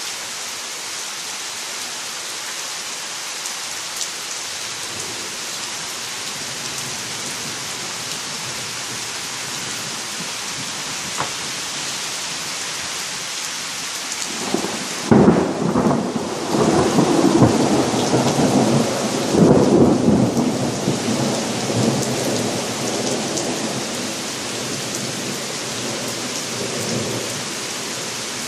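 Steady rain falling throughout. About halfway through, a rolling thunder clap breaks with a sudden crack, then rumbles on in several swells for about eight seconds before fading back under the rain.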